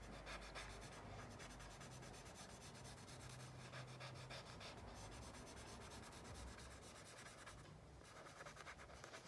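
Faint, steady scratchy rubbing of a small piece of vine charcoal worked in small circles over compressed charcoal on drawing paper, working the compressed charcoal's grit into the paper.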